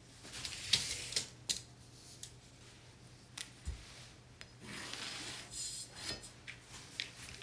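Rubbing and scuffing of a high-density foam mattress cushion being handled, with a few light taps. There are short swishes near the start and a longer stretch of scuffing a little past the middle.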